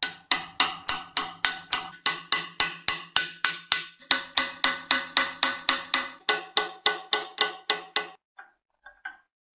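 Hammer striking a steel punch held on the pivot pin of an old cast-iron block plane's adjuster lever: a steady run of ringing metal-on-metal blows, about three to four a second for some eight seconds. A few faint taps follow near the end.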